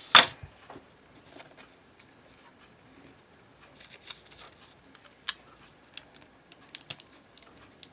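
Adhesive tape being pulled off and handled: a short, loud rip right at the start, then faint rustling and scattered small clicks and snips.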